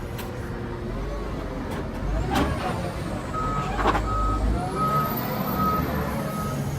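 Heavy machinery running with a low rumble and a couple of knocks. About halfway through, a vehicle's reversing alarm starts beeping at one steady pitch, about one and a half beeps a second.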